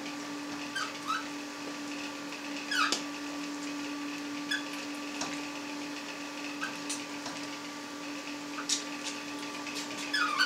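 Sausage emulsion being pressed from a vertical piston stuffer into a wide collagen casing: short squeaks and sharp clicks every second or two as the casing is handled on the nozzle, over a steady low hum.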